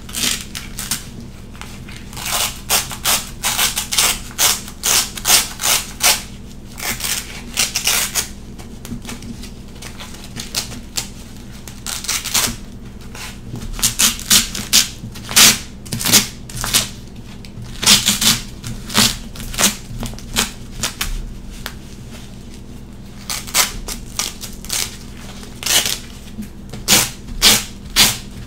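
Hook-and-loop (Velcro) straps being ripped apart in quick, short, scratchy tears, in runs of several rips with brief pauses between.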